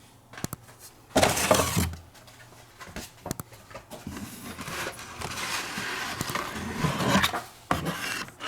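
Cardboard case packaging and carded toy cars being handled: a brief burst of rubbing about a second in, a few clicks, then a long stretch of rubbing and scraping from about four seconds in until near the end.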